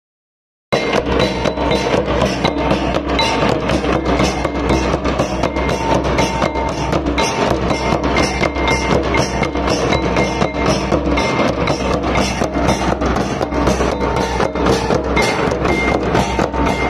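Folk drum ensemble playing a fast, steady beat: large kettle drums struck with sticks, bass drums and clashing hand cymbals. It starts after a moment of silence under a second in.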